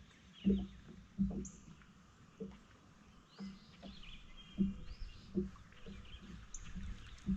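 Birds chirping and calling with short high notes, over a series of irregular low knocks about a second apart, which are the loudest sounds.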